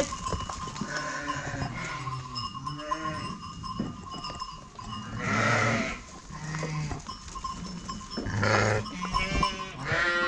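A flock of sheep bleating, many overlapping calls one after another, with the loudest around the middle and near the end. A steady bell-like ringing runs beneath them.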